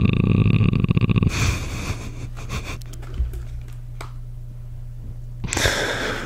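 A man growling low and rough right into the microphone for about the first second, then soft close-up breathing with small mouth clicks, and a sharp breathy puff near the end as he holds back a laugh.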